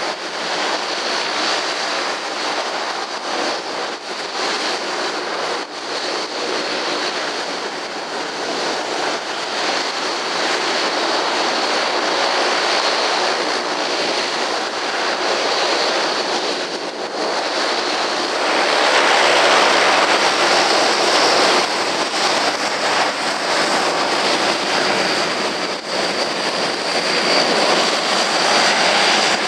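Wind noise buffeting the microphone over the steady whine of a Boeing 737-800's jet engines at taxi power. About two-thirds of the way through, the sound turns louder and a low steady hum comes in from an Antonov An-12's turboprop engines.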